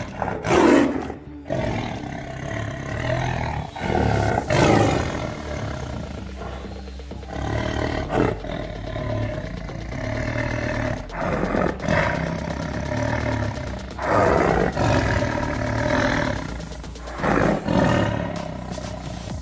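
Dinosaur-style roars and growls in speech-like phrases, loudest about half a second in, near four and a half seconds, and several times later on. They stand in for the T. rex's speech.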